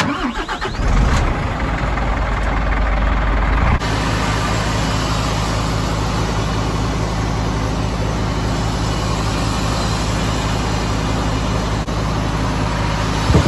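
Lorry's diesel engine cranked and catching within about a second, then idling steadily. It is run so that the air system builds pressure and a leak in it can be traced.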